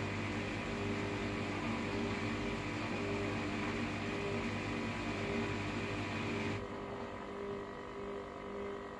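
Hoover washer-dryer running with a steady machine hum; about two-thirds of the way through, part of the machine switches off, leaving a quieter hum.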